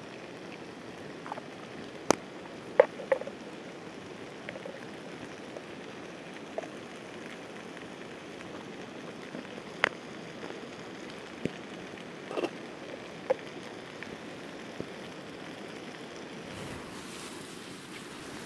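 Steady hiss of rain and a river, with scattered sharp clinks and knocks of camp cookware as the nacho mix is heated.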